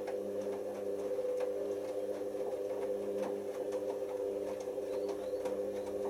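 Hoover Optima OPH714D washing machine tumbling a cotton load during its load-sensing phase: a steady motor hum with scattered knocks from the clothes dropping in the turning drum.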